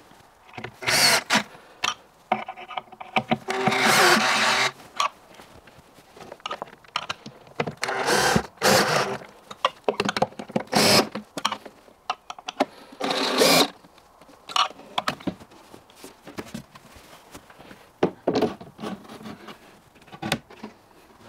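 Cordless drill-driver driving screws into cabinet board panels in several short bursts, one longer run a few seconds in. Knocks and clatter of the panels being handled come between the bursts.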